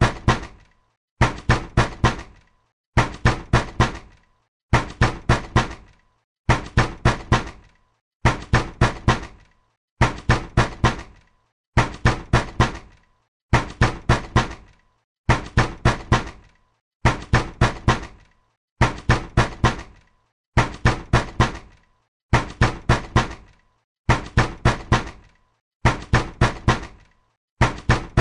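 Angry knocking on a door: loud knocks come in quick bursts of four, and a burst repeats about every second and three-quarters with no let-up.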